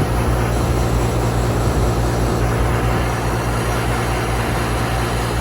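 Outdoor central air conditioner condensing unit running: a steady low compressor hum under the even rush of the condenser fan.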